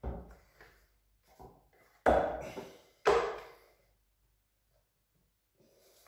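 Plastic parts of a Bosch GL-20 canister vacuum cleaner being handled as its blue cover is taken off: a light clatter, then two loud plastic knocks about a second apart, each ringing briefly in the small tiled room.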